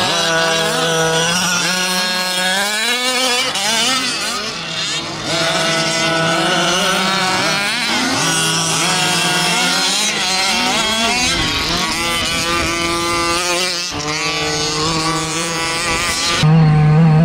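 Gas-powered large-scale RC cars' small two-stroke engines revving as they race past, their pitch rising and falling again and again with the throttle. Near the end a single engine comes in louder and close up.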